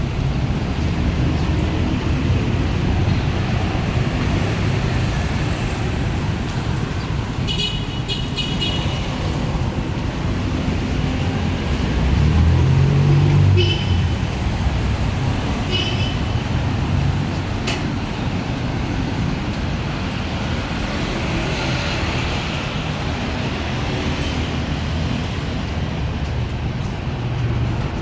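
Street traffic: a steady rumble of passing cars and buses, with one vehicle passing louder about twelve seconds in. A few short high-pitched tones cut through, the longest about eight seconds in.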